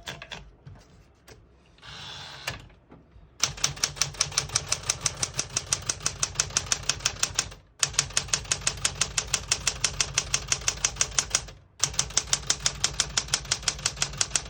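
1973 Smith-Corona Galaxie Twelve manual portable typewriter typing fast, even keystrokes, about eight a second, in three long runs with two brief pauses. The typing is preceded by a short rasp about two seconds in.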